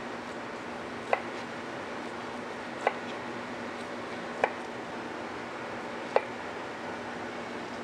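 A knife cutting through fresh pineapple, knocking on a cutting board in four evenly spaced strokes about every second and a half to two seconds, over a steady low hum.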